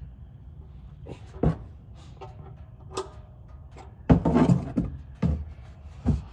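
Knocks and clacks of a wrench working the oil drain plug loose under a Jeep YJ: single sharp knocks about a second and a half in and at three seconds, a burst of louder knocks a little after four seconds, and two more near the end, over a low steady hum.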